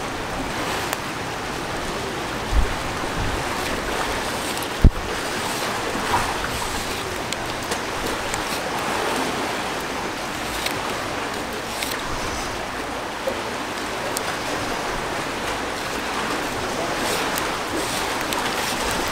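Steady wash of the sea and wind, with a few brief low bumps, the sharpest about five seconds in.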